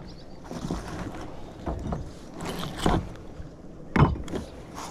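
Knocks from a kayak on the water, about one a second, the loudest near the end, over a steady rush of background noise.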